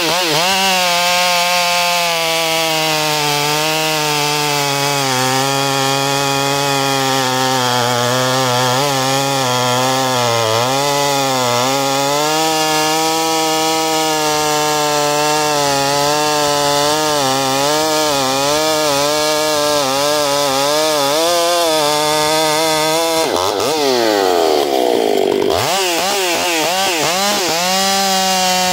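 Stihl MS 661 C two-stroke chainsaw with a square-ground chisel chain, running at high revs under load while bucking dry, fire-killed spruce. The engine note wavers as the chain bites. About 23 seconds in it drops sharply, then climbs back to full revs about two seconds later.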